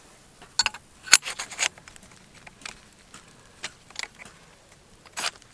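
Metal clicks and clinks from a steel T-post brace and its Wedgeloc bracket being fitted by hand: a quick cluster about a second in, then a few single clicks spaced out.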